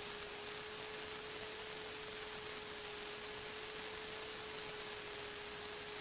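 Steady hiss of the cockpit intercom audio, with a thin steady hum tone underneath.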